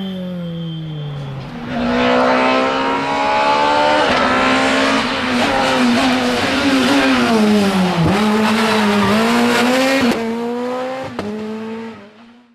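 Rally car engines at full speed. First a Renault Clio rally car's engine, its note falling as it drives away. Then a Skoda Fabia S2000 rally car's engine revving hard, pitch climbing and dropping with each gear change and lift, before it fades out near the end.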